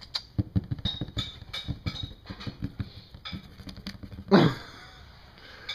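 Irregular light tapping and scratching on a cardboard box, several taps a second, then one louder bump about four seconds in.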